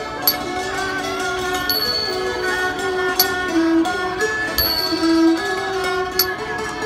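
Thai classical ensemble playing a slow instrumental piece: sustained melodic lines from string instruments over a high ringing stroke that marks the beat about every one and a half seconds.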